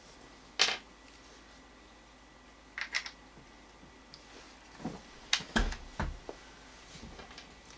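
Metal and polymer gun parts of a GSG-5 rifle being handled: a sharp click about half a second in, a quick double click around three seconds in, then a cluster of knocks ending in two low thuds as the upper receiver is set down on the wooden table.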